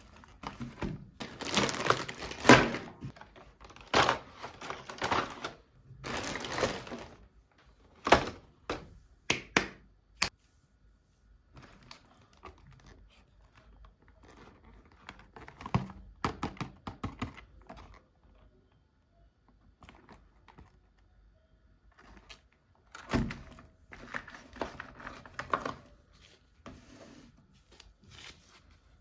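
Plastic toy packaging being unwrapped by hand: crinkling and tearing in loud bursts, with knocks and a quick run of sharp clicks as the box and toys are handled.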